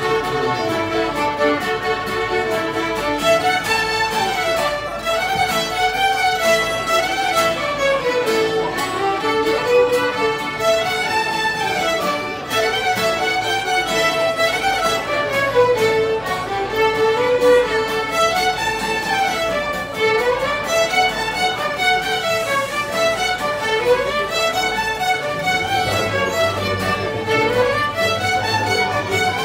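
A youth ensemble of violins playing a fiddle tune together, the melody moving in runs that climb and fall, over a held note through the first half, with an acoustic guitar accompanying.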